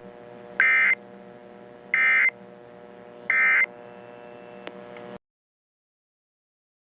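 Three short screeching data bursts of an Emergency Alert System end-of-message (EOM) header, about 1.3 seconds apart, over a faint steady hum that cuts off sharply about five seconds in.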